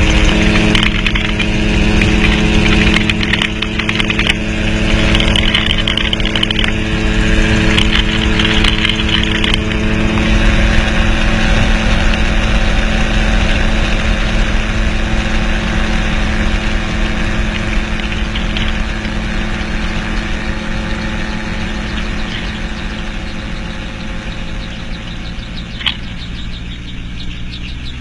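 Gyroplane's engine and pusher propeller running steadily, with wind noise over the airframe. Through the second half the engine gets gradually quieter and its note drops near the end as power is taken off for the landing.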